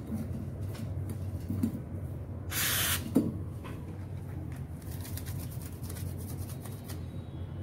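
Handling of a rubber-banded iPhone XR on a silicone repair mat: a brief rustle about two and a half seconds in, then a single sharp knock as the phone is taken up, over a steady low hum.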